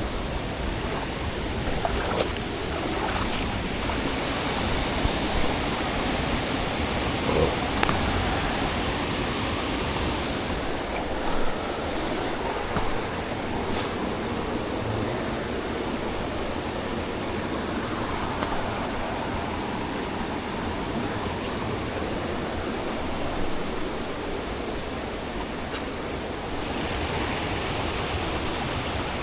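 Steady rushing of flowing water from a stream or waterfall, an even hiss with a few faint knocks over it.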